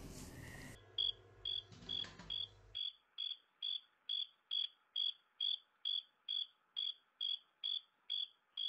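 Cricket chirping, starting about a second in: an even run of short, high chirps, a little over two a second. It is laid in as a sound effect over a black screen.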